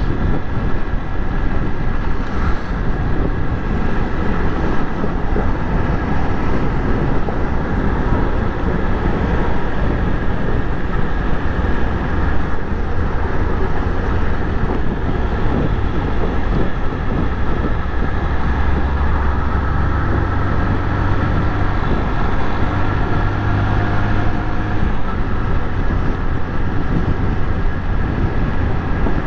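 A Honda Titan 125's single-cylinder four-stroke engine running steadily at highway cruising speed, heard from the rider's seat along with wind and tyre noise. A deeper low rumble swells for a while past the middle.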